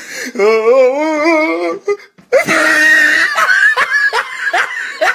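Laughter from a looped meme soundtrack: a wavering, warbling laugh, a brief break about two seconds in, then a loud run of short laughs, each rising in pitch, about two a second.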